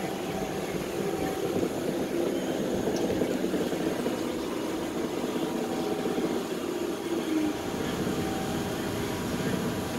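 Steady rumble of a Toronto streetcar's motors and wheels on the rails, heard from inside the car as it runs along the street.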